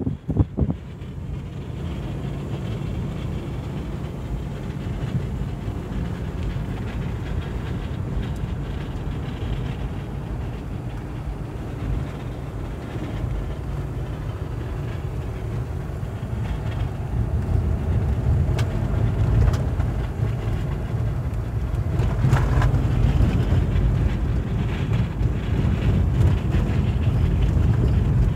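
Low, steady rumble of a car's engine and tyres heard from inside the cabin while driving on a dirt road, growing louder a little past the middle.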